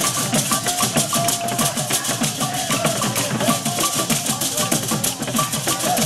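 Music with a fast, steady drum and percussion beat and a short repeating melody.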